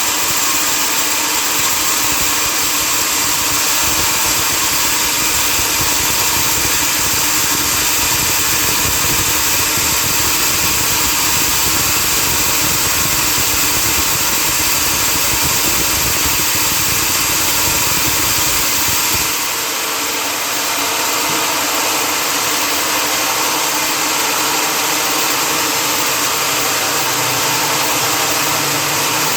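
Sawmill machinery running steadily: a loud, continuous mechanical drone. About two-thirds of the way through, the low rumble drops away and the sound turns thinner.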